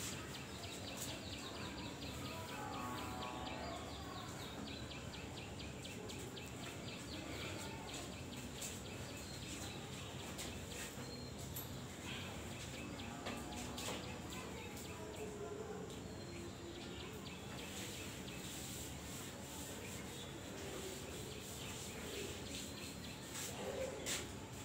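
Faint room background noise, with a rapid high chirping or ticking through much of it and a few scattered knocks.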